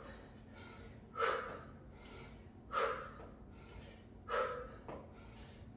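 A woman breathing hard through a cardio exercise, with a strong puffed exhale about every second and a half and weaker breaths in between.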